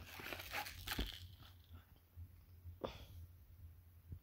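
Carded plastic blister pack of a baby rattle teether being handled and turned over: crinkling and rubbing for about the first second, with a sharp click, then one short crackle about three seconds in.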